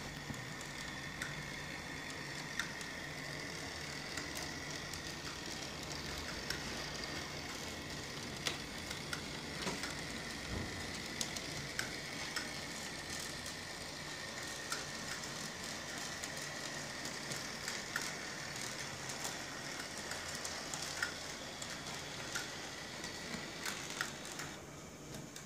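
Model streetcars running on a layout with live overhead trolley wire: a steady high-pitched small-motor whine over a crackling hiss, with frequent irregular clicks from wheels on the track and trolley poles on the wire. The whine and noise fade just before the end.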